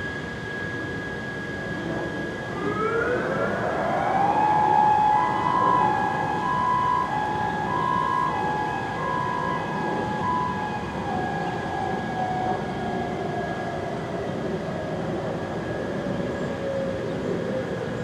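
Warning siren in an emergency alert recording. It winds up in pitch about three seconds in, holds a steady wail with a pulsing tone over it, then slowly winds down, over a hiss of noise and a faint steady high tone.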